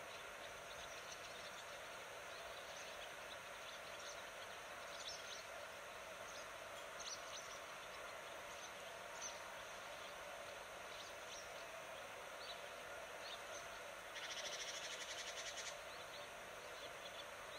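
Outdoor nature ambience: scattered short, high bird chirps over a steady hiss, with a rapid buzzing trill lasting about a second and a half near the end.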